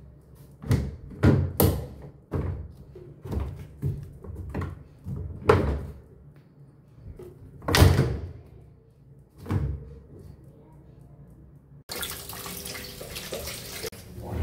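Hard plastic knocks and thuds, about a dozen at uneven intervals, as the washing machine's bottom grille cover is pushed and snapped into place; the loudest knock comes about eight seconds in. Near the end the knocks give way abruptly to a steady rush of water running into the tub.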